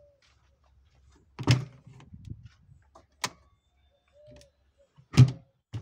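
Two loud thumps, about 1.5 s and 5.2 s in, with a sharp click between them and a smaller knock right after the second thump.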